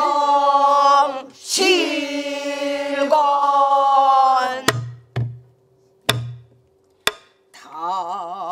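Pansori singing by a woman, with the class singing along, in two long phrases of held, wavering notes. Then the singing pauses for four strokes on the buk barrel drum in the slow jinyangjo rhythm: sharp stick knocks, some with a low boom. Voices come back in near the end.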